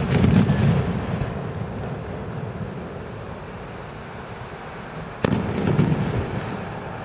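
Aerial firework shells bursting: a sharp bang right at the start and another about five seconds in, each followed by a low rolling rumble that dies away over about a second.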